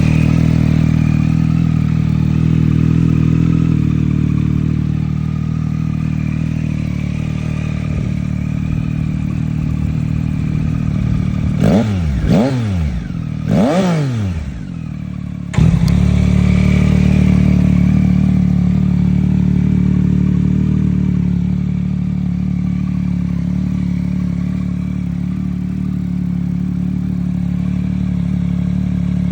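Motorcycle engine idling through a LeoVince LV Race exhaust, with two quick throttle blips about halfway through. A little later the sound jumps suddenly, and the idle carries on slightly louder.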